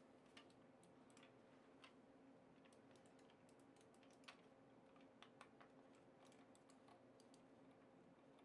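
Faint, scattered clicks and taps of hard plastic as the parts of a Zalman FG1000 gun-style gaming mouse are handled and fitted together, with one sharper click about four seconds in, over a low steady hum.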